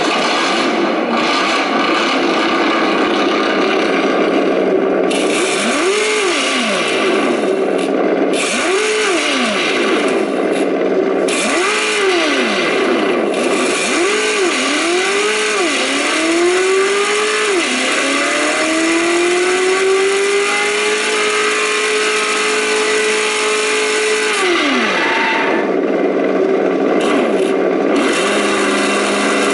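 Engine sound of a 1/10-scale RC trophy truck, most likely from its engine-sound simulator, idling with short rev blips about every three seconds, then quicker blips. It then revs up and holds high for about six seconds before dropping back to idle about two-thirds of the way in. The tone is the module's untuned factory setting.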